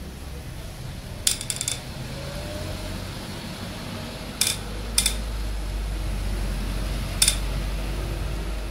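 Hammer striking a steel drift against a Honda B20 engine block, giving sharp ringing metal clinks: a quick run of taps about a second in, then single strikes at around four and a half, five and seven seconds.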